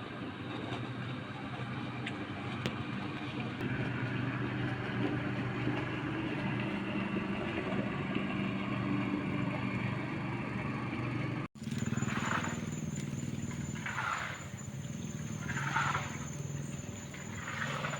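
Motor vehicle engine running steadily. After a sudden cut about eleven seconds in, the engine hum goes on under a thin high steady tone, with three short swelling sounds about two seconds apart.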